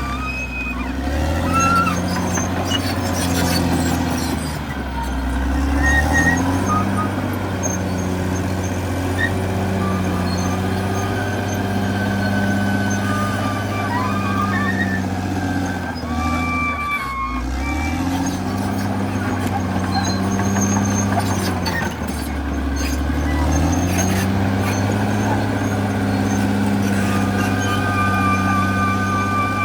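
Caterpillar D6R XL bulldozer's diesel engine working under load, its engine speed dropping and picking back up several times as the machine pushes and backs off. Intermittent high squeals sound over it.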